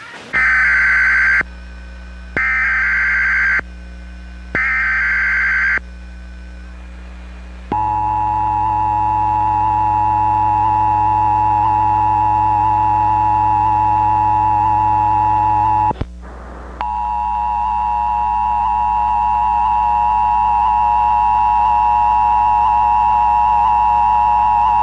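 Emergency Alert System test signal: three short, screechy bursts of digital header data about a second apart, then the steady two-tone attention signal. The attention tone breaks off for under a second about two-thirds of the way through and resumes. A low hum runs underneath throughout.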